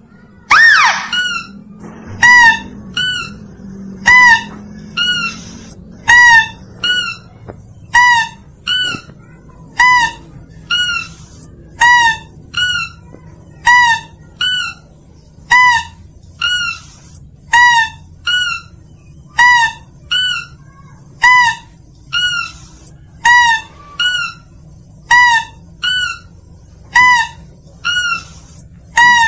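Mouse-deer (kancil) lure call: short, high, squeaky calls repeated at an even pace, about one a second, alternating louder and softer, after a single falling whistle about a second in.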